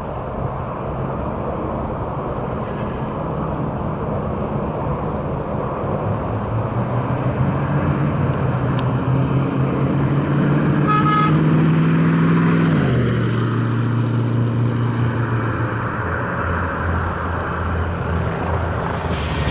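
A 1938 Chevrolet Master Deluxe's engine running as the car drives toward the listener and passes close by. Its pitch climbs and grows louder on the approach, then drops sharply about thirteen seconds in as it goes past, and it carries on more steadily as the car pulls away.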